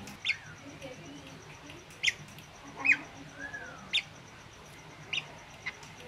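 Caged drongo calling: short, sharp high chirps about once a second, some trailing into a soft arched whistle.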